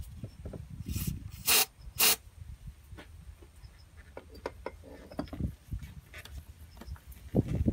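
Gloved hand twisting and working a Honda Dio scooter's carburetor loose among its rubber hoses: irregular rubbing and scraping with small clicks, and two short, loud rasping noises about a second and a half and two seconds in.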